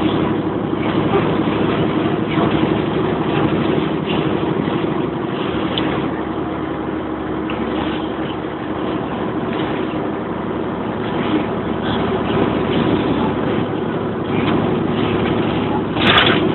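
Cabin noise inside a Bova Futura coach under way on the highway: a steady diesel engine drone mixed with tyre and road noise. A brief louder noise comes about sixteen seconds in.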